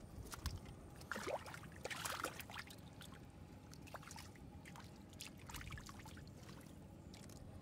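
Hands groping in shallow muddy water, making faint scattered splashes, drips and squelches, with a small flurry of splashing about one to two seconds in.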